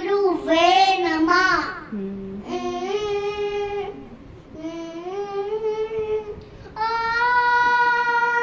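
A young boy singing, with held notes that slide in pitch between phrases; about seven seconds in he starts one long, steady note.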